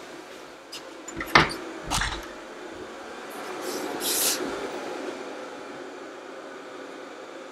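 Ultenic T10 Elite robot vacuum running with a steady hum. Two sharp knocks come about a second and a half and two seconds in, and a short hiss about four seconds in.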